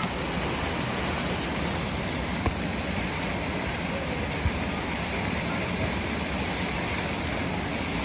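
Steady rush of falling and churning water from a waterfall pouring onto rockwork beside a whitewater raft ride, with two brief knocks about two seconds apart.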